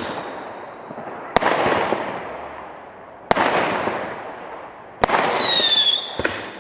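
A 0.6-inch fireworks cake firing shot after shot: four sharp bangs, each followed by a hiss that fades over a second or so. The third bang brings a high whistle that falls in pitch for about a second.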